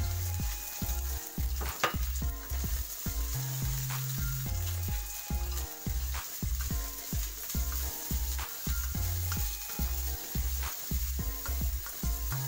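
Oil sizzling in a non-stick wok as sliced aromatics are stir-fried, with the spatula now and then scraping and knocking against the pan. A background music bass line runs underneath.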